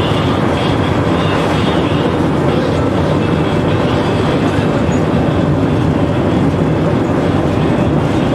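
Tram running along street track, heard from inside the driver's cab: a steady, dense noise of wheels on the rails and running gear.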